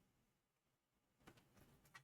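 Near silence: room tone, with a couple of faint short clicks, one just past a second in and one near the end.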